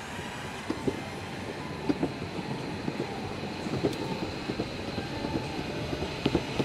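Electric skateboard wheels rolling over a paved path: a steady rumble with irregular short knocks.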